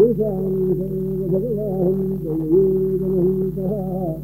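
A man's voice chanting a verse in a long held melody that wavers and turns slowly in pitch. It starts abruptly and breaks off at the end, over a steady low hum.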